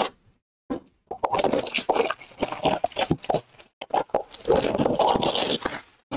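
Crinkling and tearing of plastic shrink wrap being pulled off a sealed trading-card hobby box, with hands scraping over the cardboard. The crackling starts about a second in, pauses briefly around the middle, then carries on.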